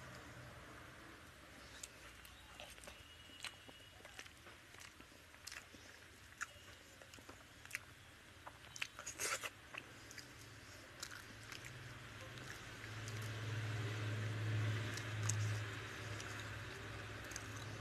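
Close-up eating sounds: fingers pulling apart a whole pomfret in curry on a plate, with scattered small wet clicks and smacks and some chewing. A low hum swells about thirteen seconds in and eases off a few seconds later.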